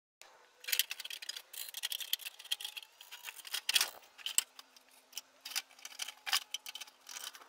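Tin snips cutting the rusty sheet steel of an old Craftsman metal toolbox: a run of irregular, sharp snips and clicks.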